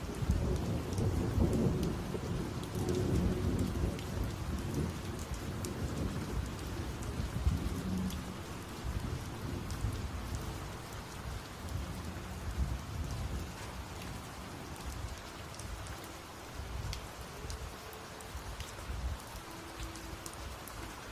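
Heavy rain falling, with scattered drops pattering close by, and rolling thunder: a low rumble that is strongest over the first eight seconds or so and then dies down.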